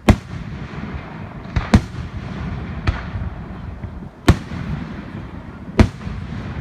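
Fireworks bursting overhead: five sharp bangs about a second or a second and a half apart, each trailing off in a short echo over a continuous low rumble of more distant bursts.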